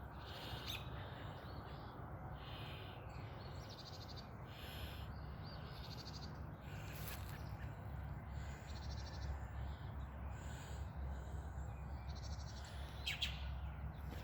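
Birds calling unseen: short, buzzy chirps repeating about once a second, over a faint low background rumble.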